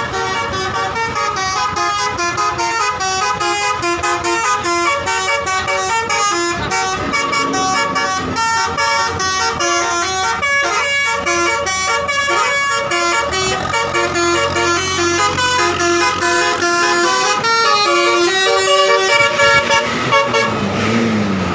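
Basuri multi-tone "telolet" bus horn playing a continuous melody of quickly changing notes, with a low falling tone near the end.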